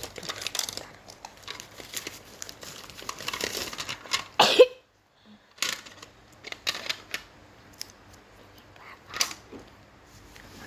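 Crinkling and rustling in scattered bursts, with a single louder, sharper burst about four and a half seconds in.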